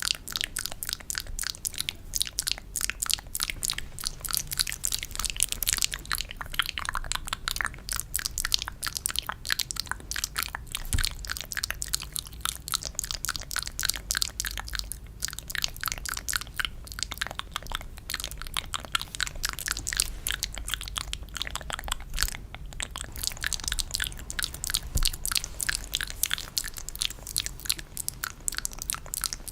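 Close-miked ASMR trigger sounds: a dense, continuous run of wet, sticky clicks and smacks, pausing briefly about two-thirds of the way through.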